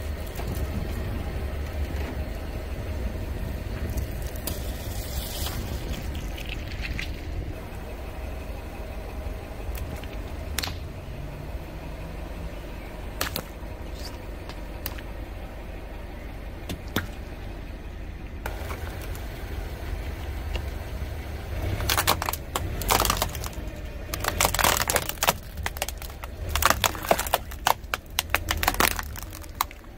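A car engine idles as a low rumble while its tyre slowly crushes things, with a few scattered pops and squelches. Over the last several seconds comes a dense run of loud cracks and crunches as the tyre rolls over a row of plastic toy trucks carrying soda cans.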